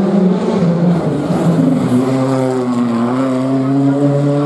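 Rally car engine running hard, its pitch dipping about three seconds in and then climbing steadily as the car accelerates away.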